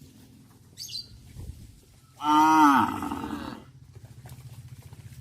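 A cow moos once, a long call that rises and then falls in pitch, starting about two seconds in. A short high chirp comes just before it, and a low steady throb follows it.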